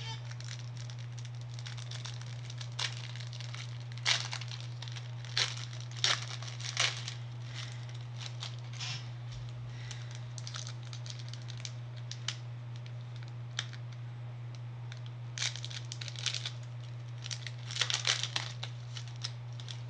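Wrapper of a Pokémon card booster pack being torn open and crinkled: scattered sharp crackles that bunch up about four to seven seconds in and again near the end, over a steady low hum.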